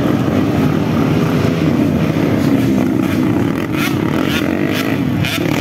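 Several motocross dirt bikes running together, their engines revving and overlapping as the riders race through a corner.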